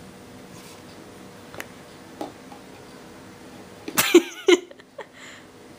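Quiet room tone with a few faint clicks, then about four seconds in two short, loud vocal sounds that waver in pitch.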